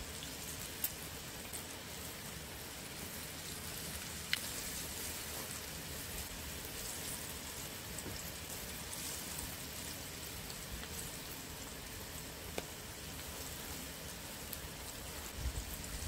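Whole baby octopus deep-frying in a pot of oil: a steady crackling sizzle, with a few light clicks, the sharpest about one and four seconds in.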